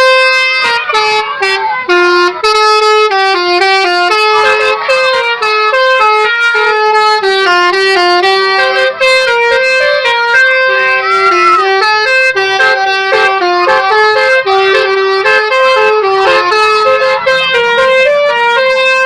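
Basuri 'telolet' bus horn playing a tune: a loud, unbroken run of short horn notes stepping up and down in pitch.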